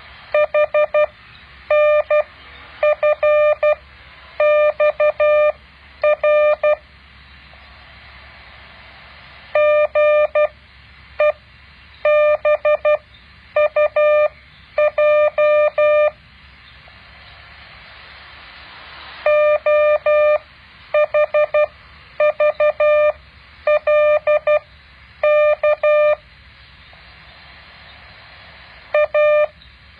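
Morse code practice tones: a single steady-pitched tone keyed on and off in dots and dashes, sent as characters in groups of five with a longer pause after each group, over a faint steady hiss.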